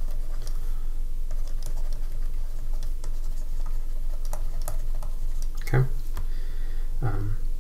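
Stylus tapping and scratching on a drawing tablet during handwriting: scattered light clicks over a steady low hum. There are two short murmurs of voice near the end.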